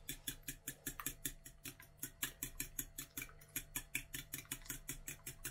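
A fork beating sour cream and eggs in a glass bowl, its tines clicking against the glass in a rapid, even rhythm of about six strokes a second.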